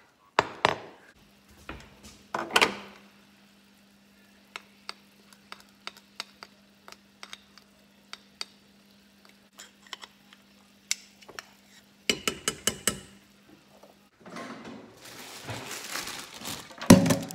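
Kitchen work sounds: two sharp knocks near the start, then scattered small clicks and taps of cooking utensils over a pot of boiling water, with a low steady hum behind them. About 14 s in, water runs into a stainless steel sink, and a loud clatter comes near the end.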